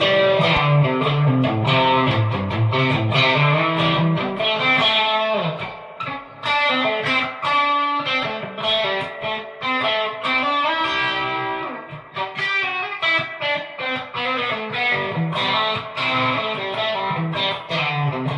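Fender Player Series Stratocaster played through distortion on its bridge pickup: a continuous run of notes and chords with the tone knob partly rolled down, still sounding harsh.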